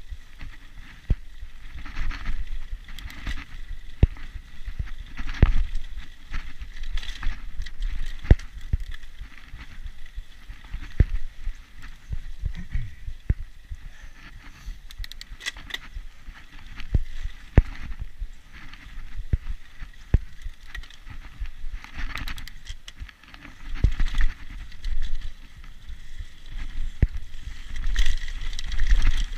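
Mountain bike running over a rough dirt trail: irregular clicks, knocks and rattles from the bike over a low rumble, louder near the end.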